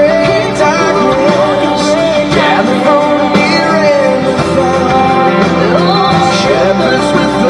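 A song with a singer over a full band arrangement, played loud and steady throughout.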